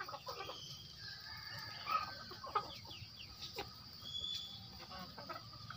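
A flock of Indonesian native chickens (ayam kampung) clucking as they feed, with short scattered calls and a couple of louder ones about two seconds in.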